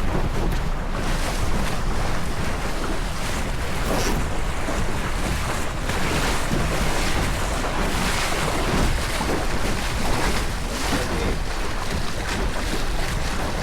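Wind buffeting the microphone over water rushing and slapping along a small sailboat's hull: a steady rushing noise with a deep rumble that swells now and then with the gusts.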